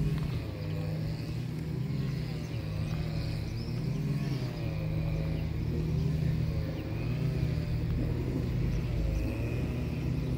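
A car engine running with a steady low rumble, its pitch wavering up and down.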